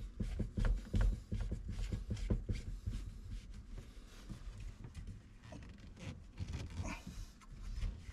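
Irregular clicks, knocks and rubbing of black plastic sink drain fittings being handled and hand-tightened, the P-trap pieces and slip nuts bumping against each other.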